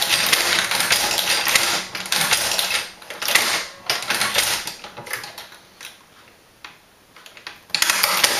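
Tippmann Boss hand-operated leather stitcher sewing through a leather holster, its needle mechanism making a rapid clacking with each stroke. The clacking is dense at first, breaks into separate runs, thins to a few scattered clicks past the middle, and picks up again near the end.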